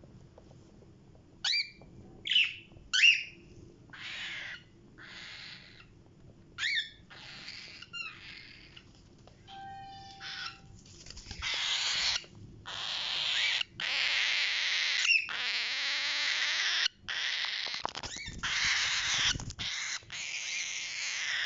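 Pet parrots calling: a few short, sharp chirps in the first seconds and a brief whistle, then from about halfway on loud, harsh, rasping screeching broken by short pauses.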